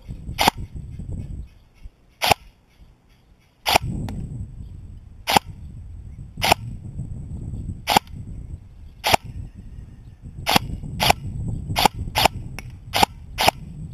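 Electric PTW-style airsoft M4 replica firing single shots: about fifteen sharp cracks, spaced a second or two apart at first, then coming about twice a second near the end, with a low rumble between them. The shooter finds that only one shot in two actually fires, the replica shooting when it pleases.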